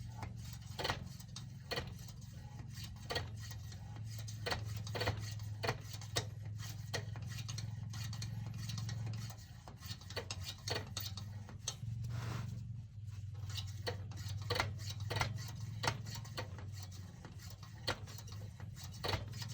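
Hand air pump of a Standard 500 CP pressure kerosene lantern being stroked to pressurise the fuel tank, clicking irregularly about once or twice a second over a steady low hum. The owner says the pump leather is not gripping air well.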